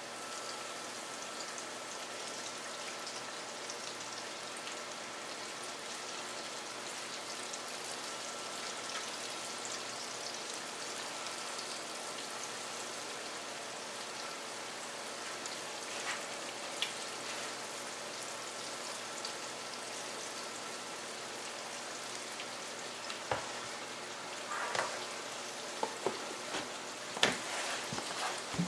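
Chicken frying in hot Crisco shortening in a cast iron skillet: a steady sizzle with no letup. Near the end come several sharp knocks and clicks.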